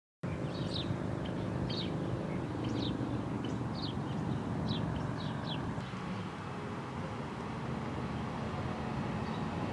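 Outdoor ambience: several short, high bird chirps over a steady low rumble, the chirps falling in the first half.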